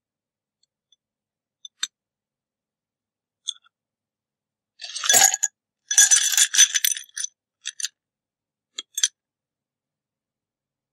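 Ice cubes poured into a tall drinking glass, a clattering run of ice-on-glass clinks lasting about two and a half seconds, followed by a few single clinks as the ice settles. A couple of lone glass clinks come earlier, from tongs touching the glass.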